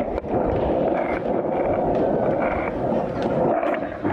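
Skateboard wheels rolling steadily over a paved path, a continuous rumbling hiss with a few faint clicks.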